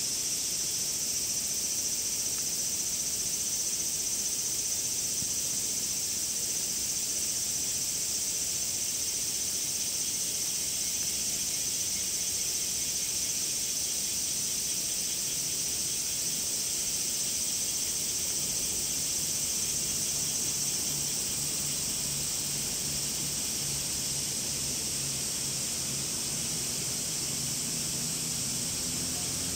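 Cicadas singing in a steady, high-pitched chorus. Its lower band fades about two-thirds of the way through, while a low hum comes in past the middle.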